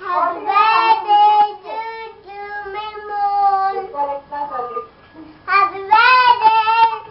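A child singing in a high voice, holding long notes, with a short break about four to five seconds in before the singing picks up again.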